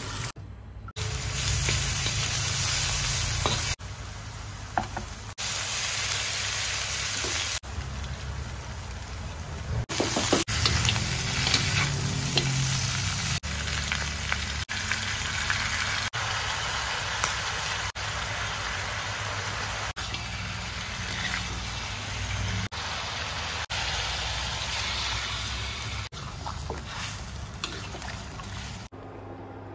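Pork pieces sizzling as they fry in a wok, with a spatula stirring and scraping against the pan. The sizzle cuts off and restarts abruptly many times, with scattered sharp clicks.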